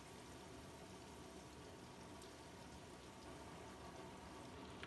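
Bell pepper pieces frying in oil in a wok: a faint, steady sizzle.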